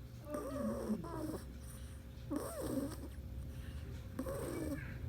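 Pet cat snoring in its sleep: three snores about two seconds apart, one per breath, each with a wavering pitch.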